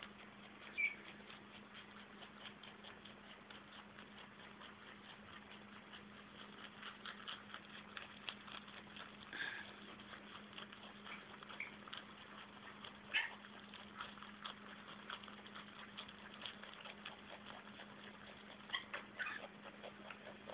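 Flemish giant rabbit rapidly chewing parsley: a fast, steady run of small crisp crunching clicks, with a few louder crunches.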